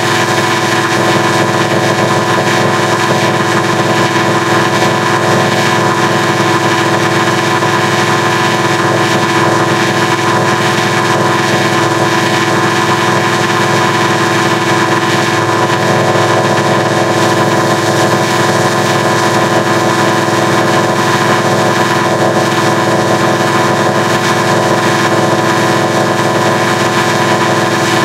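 Loud, steady, distorted electronic drone from logo audio run through stacked digital effects (a harmonic adder), smeared into a constant buzz of fixed tones with no change.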